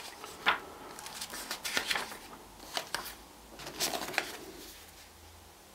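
Thick, glossy paper pages of a hardcover book being turned and handled by hand: several short rustles and swishes, the loudest about half a second in.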